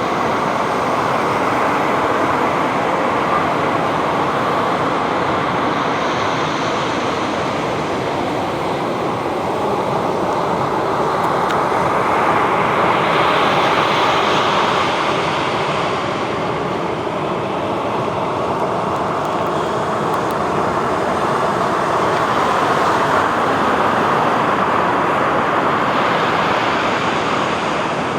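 Ocean surf: a continuous wash of breaking waves, swelling and easing every ten seconds or so.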